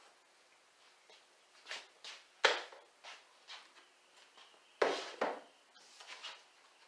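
Handling noises on a workbench: a scattering of short knocks and clatters as tools and a paddle template are picked up and set down. The loudest knock comes about two and a half seconds in, and there is a cluster of them near the five-second mark.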